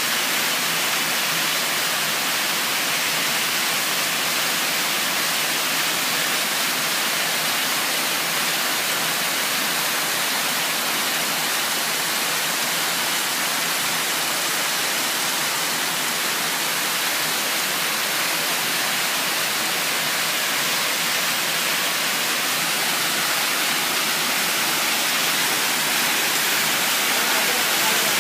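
Erin Ijesha waterfall pouring down, a steady, even rush of falling water with no break.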